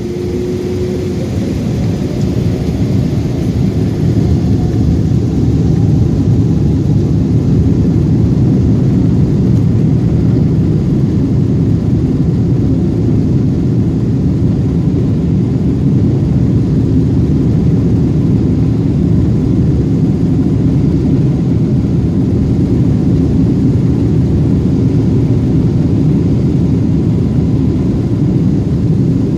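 Boeing 777-200's twin Pratt & Whitney PW4000-series turbofans heard from inside the cabin, spooling up to takeoff thrust with a rising whine over the first few seconds, then holding a loud, steady low noise.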